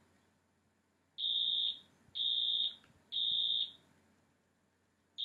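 Wheelock fire alarm horn sounding the code-3 (temporal-three) evacuation pattern: three short, steady, high-pitched tones about a second apart, then a pause before the next set starts at the very end.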